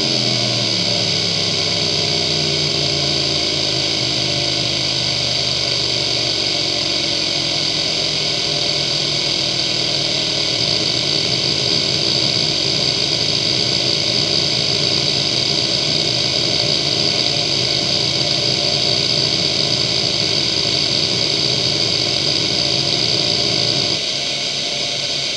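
Seagate ST9145AG 2.5-inch IDE hard drive seeking nonstop during a seek-time benchmark: a loud, dense, steady buzz from the head actuator with a high steady whine over it. About a second before the end it drops in level and changes as the test moves on to another seek pattern.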